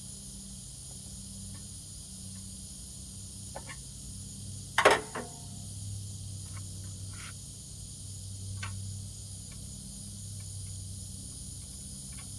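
Small clicks and taps from hand work on a riding mower's wiring and seat switch, with one loud sharp clatter about five seconds in, over a steady low hum and high hiss.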